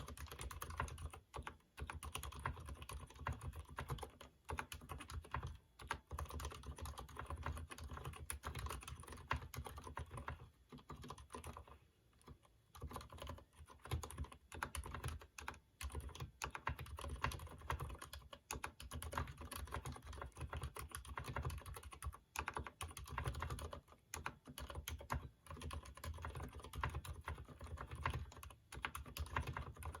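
Typing on a Durgod keyboard with unlubricated Cherry MX Silent Red switches: a continuous stream of keystrokes, with a short break in the typing about twelve seconds in.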